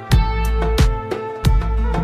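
Background music with a steady drum beat, sustained melody notes and deep bass.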